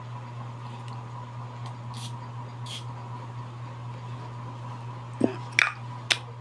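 Plastic bag and packaging being handled: a couple of brief soft rustles, then several sharp clicks and taps near the end, over a steady low hum.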